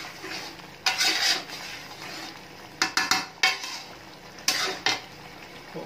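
A metal spatula scrapes and stirs a thick masala of soya chunks and potatoes around a metal karahi, while the masala sizzles underneath as it fries. There are loud scraping strokes about a second in, again around three seconds, and once more near the end.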